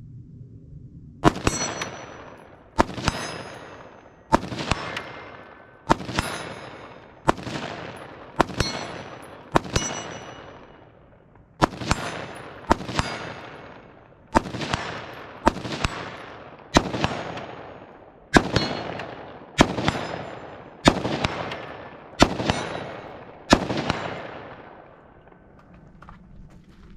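A rifle fired in a steady string of single shots, about seventeen, roughly one every second and a half with a brief pause midway. Each shot has a long echoing tail.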